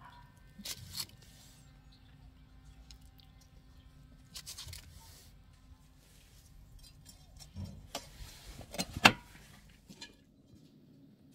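A knife clinking and scraping on a stainless steel tray and a foil butter wrapper crinkling, then a stainless steel pot lid clattering down onto the tray, with a sharp clank about nine seconds in as the loudest sound.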